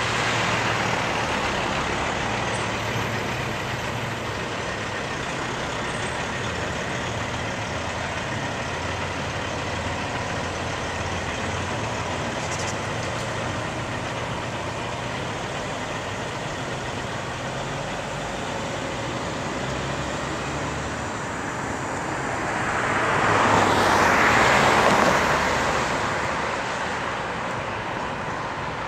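Peterbilt tractor-trailer's diesel engine running as the rig pulls out and drives off along the street, over steady traffic noise. Near the end, a vehicle passing close by swells loud and fades away.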